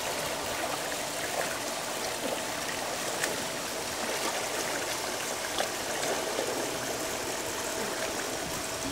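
Steady rush of water from a pool's wall spillway falling into the pool, with a few light splashes from a swimmer and a faint steady hum underneath.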